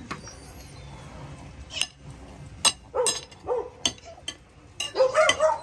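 Dogs crowding a lunch table, giving short whines and yelps, the loudest near the end, among a few sharp clinks like cutlery on a plate.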